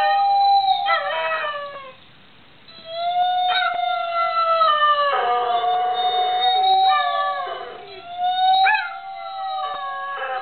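Greyhound howling ("roo-ing") in long, wavering notes, some sliding down in pitch, set off by electric guitar notes. There is a short break about two seconds in before the howling resumes.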